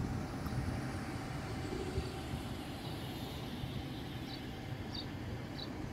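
Steady low rumble of outdoor traffic ambience, with a few short high chirps in the second half.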